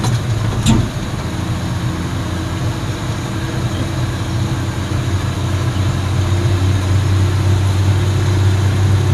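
Dump truck's engine running steadily under way, heard from inside the cab as a low drone that grows gradually louder. Two short knocks in the first second.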